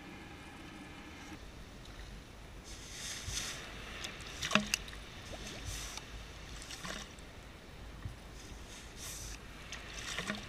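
Shallow water splashing and sloshing in several irregular bursts as a ghost shrimp pump is plunged and worked into the wet sand, with one sharp knock about four and a half seconds in.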